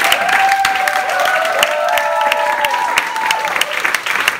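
Audience applauding at curtain call, with a few long held whoops over the clapping in the first three seconds or so.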